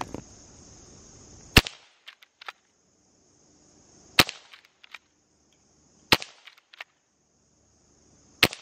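Hatsan Vectis .22 calibre PCP lever-action air rifle firing four sharp shots about two seconds apart. Each shot is followed by a few light clicks as the lever is cycled to chamber the next pellet.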